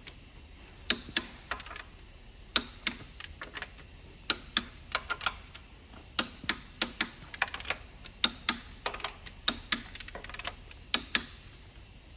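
Ratchet wrench clicking in short, irregular runs of sharp metallic clicks while the connecting-rod cap bolts are run down.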